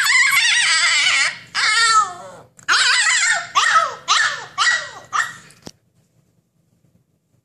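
Siberian husky puppy yowling in high-pitched, wavering cries, its protest at being shut behind a gate. First comes one long cry, then a second, then a run of shorter yowls that stops abruptly about three-quarters of the way through.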